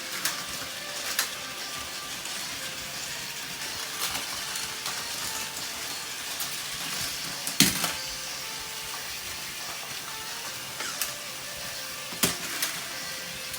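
Battery-powered Plarail toy trains whirring and rattling along plastic track, with several sharp knocks; the loudest knock comes about halfway through.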